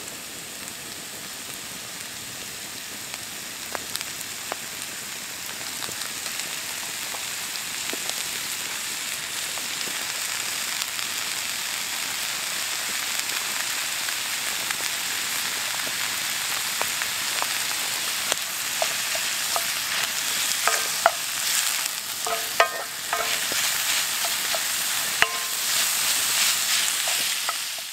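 Minced beef and onions sizzling in a cast-iron skillet, the frying growing gradually louder. From about two-thirds of the way in, a wooden spoon stirs the meat, with scraping and short knocks against the pan.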